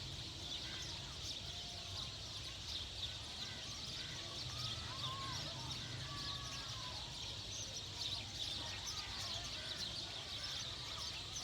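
A dense chorus of birds chirping, with scattered short rising and falling calls, over a steady low rumble.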